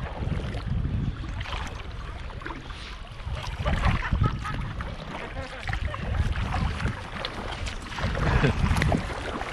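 Kayak paddles dipping into lake water and splashing in uneven strokes, with wind rumbling on the microphone.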